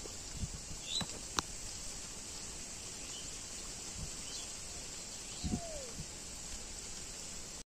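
Quiet rural outdoor ambience: a steady hiss with a few faint bird chirps, two light clicks about a second in, and one short falling call around five and a half seconds.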